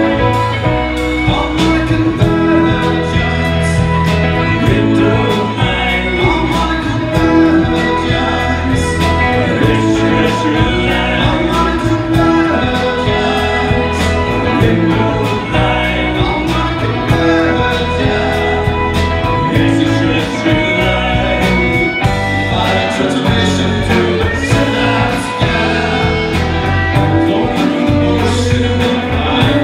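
Live band playing with a steady drum beat, electric guitars, fiddle and keyboards.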